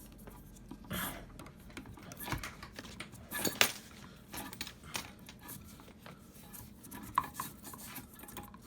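A belt being pushed and pulled through a hoverboard kart's metal frame: scattered clinks, rattles and sharp knocks of metal parts, with the loudest knock about three and a half seconds in.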